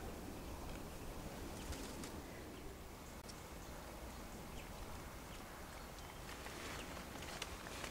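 Quiet woodland ambience: a steady low background hiss and rumble with scattered faint clicks and rustles, broken by a brief dropout about three seconds in.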